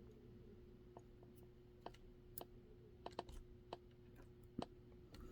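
Faint, irregular small clicks and ticks of a lock pick probing the spring-loaded sliders inside a Tokoz Tech 300 lock held under tension.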